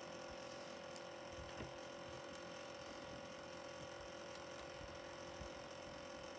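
Electric desk fan running with a steady, low hum, broken by a few faint taps.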